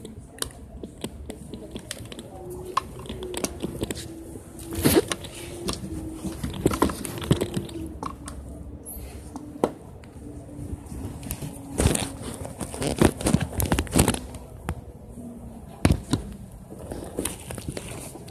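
Handling noise from a hand-held camera: irregular clicks, knocks and rubs from fingers and grip moving against the body of the device close to the microphone, some of them sharp.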